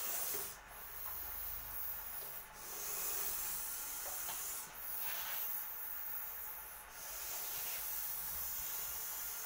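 A snake hissing defensively as it is handled: long, steady hisses repeated about every two seconds, each broken by a brief pause for breath.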